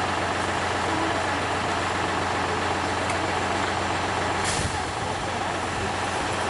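Small narrow-gauge diesel locomotive engine running steadily at idle, with a brief hiss about four and a half seconds in.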